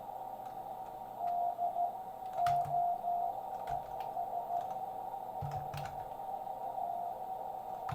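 Morse code (CW) on a 40-metre ham radio: a single beep tone keyed in short and long elements, heard through a narrow receiver filter over steady band hiss. A few sharp clicks come along with it.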